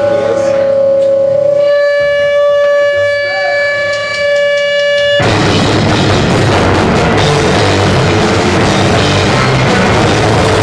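Live rock band recorded through badly overdriven microphones. A single held, distorted tone with strong overtones rings on its own for about five seconds, then the full band with drums comes in at once as a dense, clipped wall of noise.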